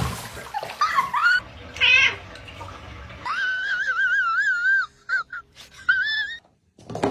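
A cat meowing several times, mostly short calls, with one long wavering meow about three seconds in.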